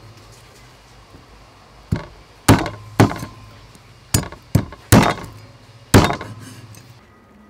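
Cleaver striking a catfish on a thick wooden chopping block: about seven sharp chopping thuds at uneven intervals, starting about two seconds in.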